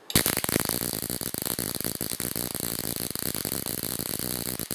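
Ruhmkorff induction coil running: a spark arc crackles across the gap between two pointed brass electrodes, with the rapid buzz of the coil's interrupter behind it. It starts suddenly and holds a dense, steady, fast crackle.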